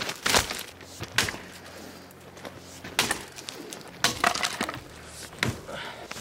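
Irregular sharp clacks and snaps, about six of them at uneven intervals, as hard objects are knocked or broken.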